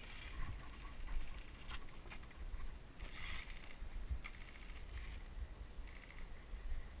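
Airsoft electric guns firing several short rapid bursts, a rattling mechanical chatter, over a low rumble of wind and handling on the microphone.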